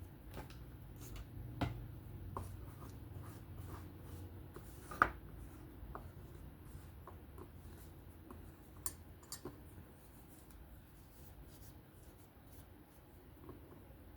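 Faint rubbing and scattered light clicks as the small parts of a disassembled titanium folding knife are handled and wiped clean, with a sharper click about five seconds in.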